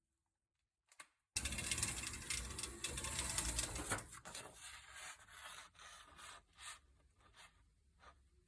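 Rubbing and scraping handling noise with many small clicks, densest for a couple of seconds after a single click about a second in, then thinning to scattered faint clicks and rustles.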